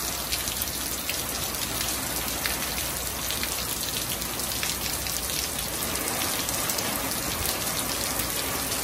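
Heavy rain falling steadily on a pickup truck and a concrete driveway: an even hiss with many small drop impacts.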